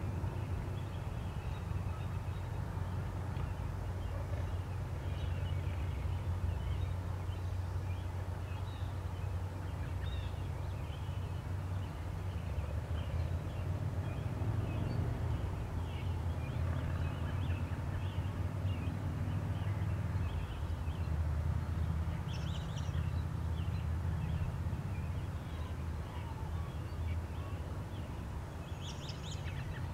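Outdoor ambience: a steady low rumble with faint bird calls scattered throughout, and a few sharper chirps about two-thirds of the way in and near the end.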